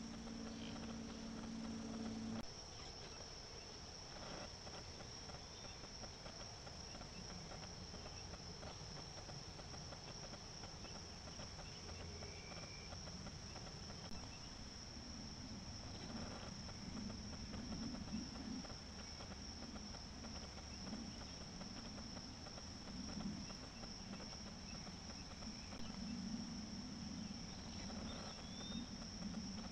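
Insect chorus: a steady, high-pitched trill from crickets or similar insects. A low, uneven sound comes and goes through the second half.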